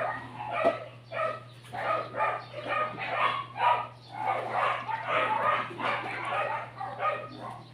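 A dog barking repeatedly, about two to three short barks a second, over a steady low hum.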